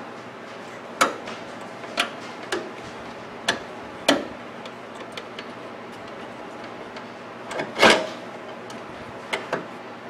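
Irregular sharp plastic clicks and knocks, about eight of them with the loudest near the end, as the plastic inner cover of a Magic Chef microwave oven door is pressed and snapped back into place.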